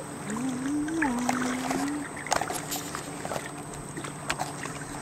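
Kayak being paddled backwards: water splashing and dripping off the paddle, with a few sharp knocks of paddle on hull. A brief low hum rises and levels off in the first two seconds.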